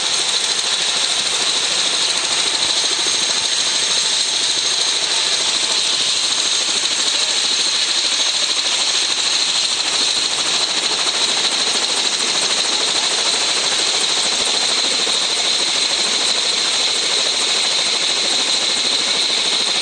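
A single-engine AS350-type helicopter running on the ground with its rotor turning: a steady, loud turbine rush with a high whine over it.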